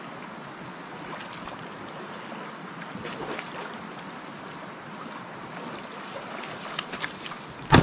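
Water sloshing and splashing as a wild boar swims and then wades across a shallow river, then a single loud rifle shot right at the end.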